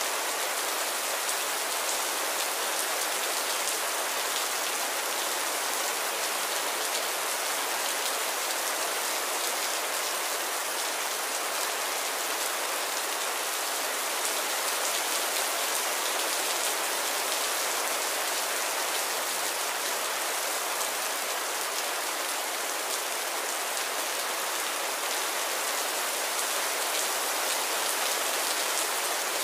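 Heavy rain falling steadily: a dense, even hiss of drops that holds at one level throughout.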